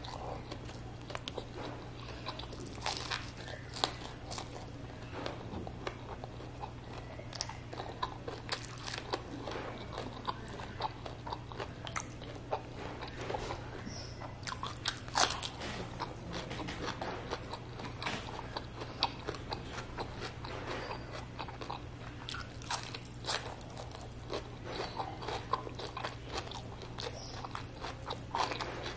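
Close-miked chewing and crunching of food eaten by hand, with many sharp crunchy bites. The loudest crunch, about halfway through, is a fresh cucumber slice being bitten. A steady low hum runs underneath.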